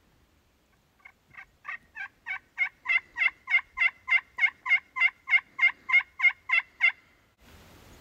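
Turkey box call worked by hand in a fast run of about twenty hen yelps, roughly three a second, starting soft and building louder before stopping near the end: a call sent out to draw a gobble from toms.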